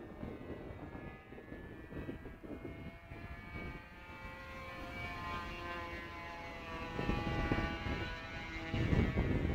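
Radio-controlled model airplane's engine buzzing high overhead, its pitch drifting slightly as the plane flies. Wind gusts rumble on the microphone about seven seconds in and again near the end.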